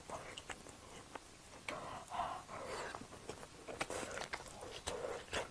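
Close-miked chewing of a mouthful of food: soft, wet mouth clicks and smacks, scattered and irregular.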